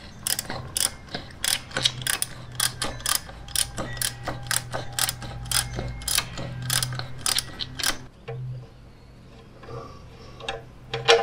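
Ratchet wrench clicking in quick, irregular runs as a fitting is turned; the clicking stops about eight seconds in.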